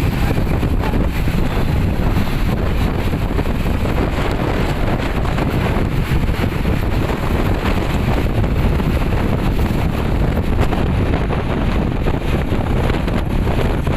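Wind buffeting the microphone over a steady vehicle running noise, a constant low rumble.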